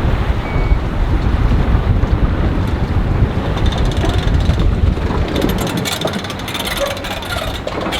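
Wind buffeting the microphone in a loud, gusting low rumble that eases about five and a half seconds in, followed by a run of rapid crackling clicks.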